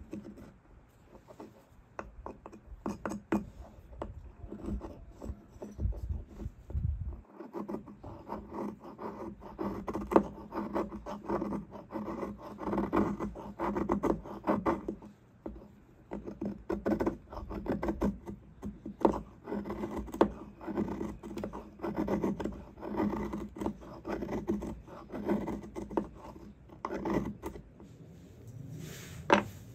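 Knife blade shaving and scraping the end of a stick of fatwood (resin-rich pine), raising fine scrapings and curls of fire tinder. Many short rasping strokes come in quick, uneven runs.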